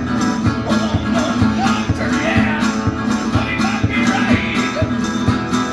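Resonator guitar being played, over a steady low kick beat about twice a second from a foot pedal beating the box the player sits on.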